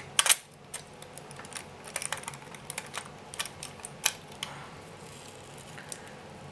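Plastic clamshell packaging of a boxed desktop processor being opened by hand, with irregular clicking and cracking. The clicks bunch up just after the start and again through the middle.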